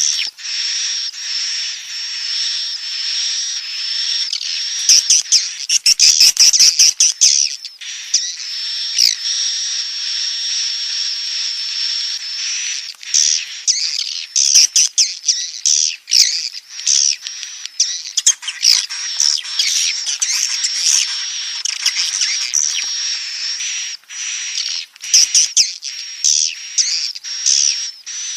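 Swiftlet chicks calling in the nest: a dense, continuous high-pitched twittering of chirps and squeaks, with many quick clicks and a thin steady high tone running through it, loudest a few seconds in.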